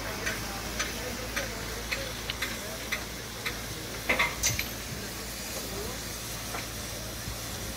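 Fire in a burning railway coach's underframe crackling and popping: sharp irregular cracks, about one or two a second with a louder cluster about four seconds in, over a steady hiss.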